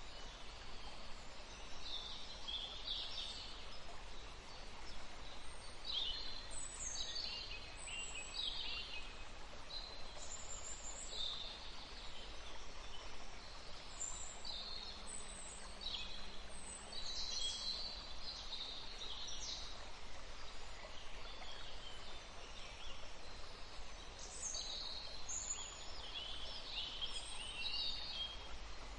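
Several songbirds chirping and trilling in short, high calls that come and go throughout, over a faint steady rush of running water.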